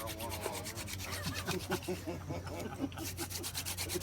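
Seep willow hand drill spindle spun rapidly back and forth between the palms, its tip grinding into a cottonwood hearth board in fast, even rubbing strokes while friction builds toward an ember.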